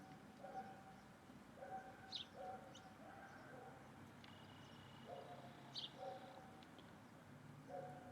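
Birds calling faintly: a series of short, repeated low notes, with a few brief high chirps and a thin whistle over them.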